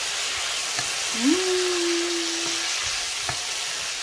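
Diced chicken, mushrooms and bell peppers sizzling in hot oil in a frying pan as a wooden spoon stirs them, with a couple of light scrapes of the spoon on the pan. A steady low tone sounds for about a second and a half, starting a little after a second in.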